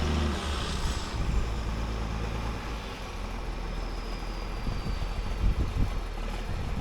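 Heavy harvest-time vehicle running, a steady rumble with no clear engine pitch and a faint high whine sliding slowly downward.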